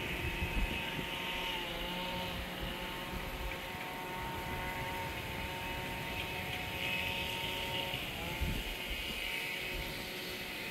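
A distant engine droning steadily, its pitch dipping briefly twice, over low gusty rumble of wind on the microphone.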